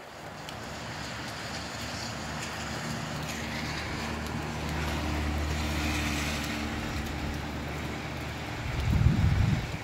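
A motor vehicle's engine hum swells and then fades, over the hiss of wind and rain. Near the end, a gust buffets the microphone.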